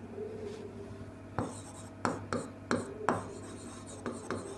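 Marker pen writing on a whiteboard: a string of short, quick strokes, about seven in the few seconds, over a low steady hum.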